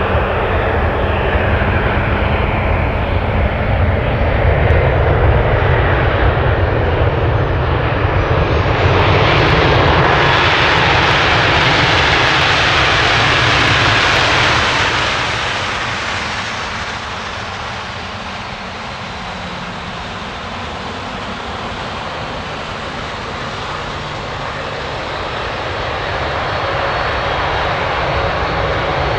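Boeing 737-800 jet airliner's twin CFM56 turbofan engines running loud. The roar swells and brightens to a peak around ten to fifteen seconds in, falls away sharply, then slowly builds again near the end.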